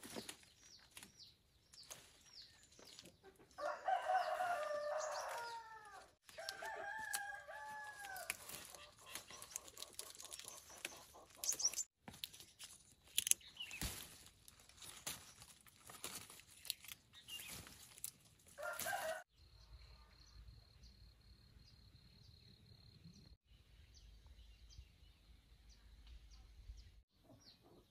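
A rooster crowing about four seconds in, then a shorter crow a few seconds later, among small birds chirping. After about nineteen seconds the sound drops to a faint steady high tone.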